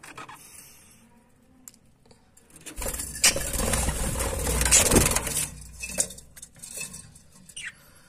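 A burst of close wing-flapping and rustling, starting about three seconds in and lasting about two and a half seconds, as a budgerigar flutters right past the microphone, mixed with clicks and knocks against the wooden cage; scattered light clicks follow.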